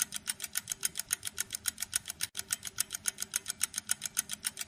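Clock-ticking sound effect sped up into a fast, even run of sharp ticks, about nine a second, marking hours passing quickly.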